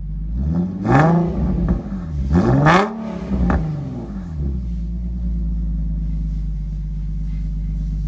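Infiniti G37's 3.7-litre V6 through a full Motordyne exhaust with ART pipes, revved in two quick blips and a smaller third, then settling back to a steady idle.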